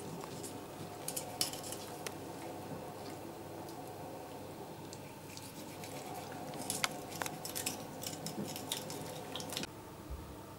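Knife slitting open a bream's belly for gutting on a wooden cutting board: faint soft clicks and scrapes of the blade and the wet fish, thickest in the second half, over a faint steady hum.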